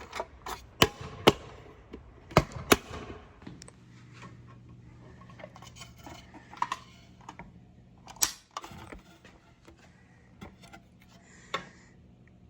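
Sharp mechanical clicks and knocks of hardware being handled, several in quick succession over the first few seconds and then scattered, over a faint low hum.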